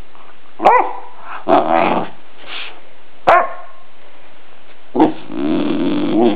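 Bullmastiff puppy moaning and groaning: three short, sharp barks falling in pitch, about a second, three and five seconds in, each followed by a grumbling groan. The last groan is the longest.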